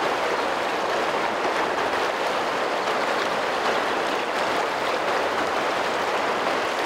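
Fast river current rushing over a shallow riffle: a steady, even water noise.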